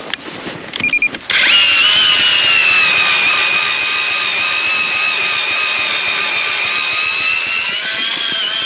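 Power ice auger drilling a hole through lake ice: it spins up quickly about a second in, then runs at a steady, high whine.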